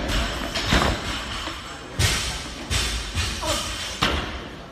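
Loaded barbells with bumper plates dropping onto lifting platforms and wooden blocks in a weightlifting gym: about four heavy thuds, the loudest about two seconds in, each with a short echoing tail.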